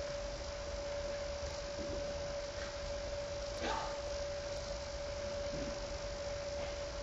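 Steady electrical hum: one constant tone over low hiss, with a faint brief sound about three and a half seconds in.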